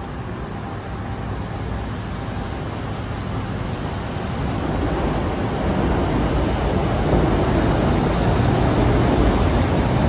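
Road traffic: cars and taxis passing on a busy city street, a steady noise that grows louder about halfway through.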